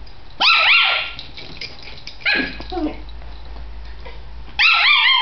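Chihuahua puppy yapping, high-pitched yips in three short bursts about two seconds apart.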